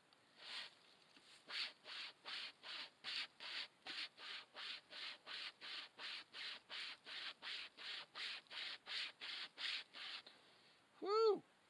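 Survival wire saw rasping through a half-rotten tree trunk in steady back-and-forth strokes, a little over two a second, stopping about ten seconds in. About a second later a short call rises and falls in pitch, louder than the sawing.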